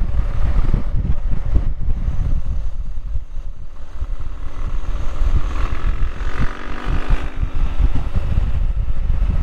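BMW R1100GS's air/oil-cooled boxer-twin engine running steadily as the motorcycle rides along, its note drifting slightly in pitch, under a heavy low rumble on the microphone.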